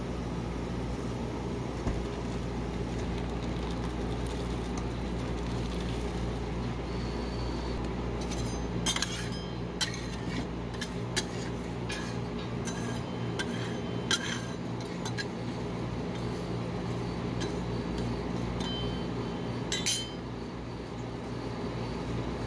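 Metal spatulas clinking and tapping on the stainless-steel cold plate of a rolled-ice-cream machine as they chop through dry cereal. The strikes are scattered and begin about a third of the way in, with the sharpest clink near the end. Underneath, the cold plate's refrigeration unit hums steadily.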